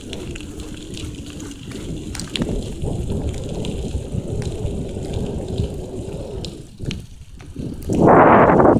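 Wind rushing over the microphone of a moving bicycle, with the bike's rolling rumble on a dirt forest track beneath it. Near the end, a much louder rush of wind noise lasts under a second.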